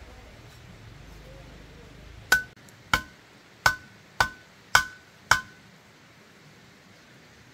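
Six sharp strikes with a short metallic ring, about one every 0.6 s, starting a little over two seconds in.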